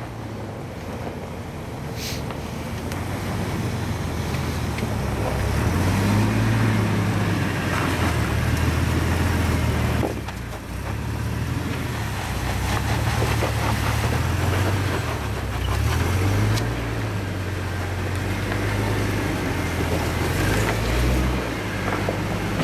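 Jeep Wrangler TJ's engine running at low speed as it crawls over boulders, the revs swelling and easing again and again under load.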